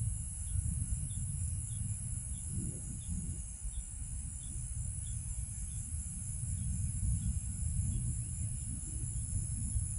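Insects chirping in a steady, even rhythm of about two chirps a second, with a continuous high insect buzz behind them. Under them runs a louder, wavering low rumble.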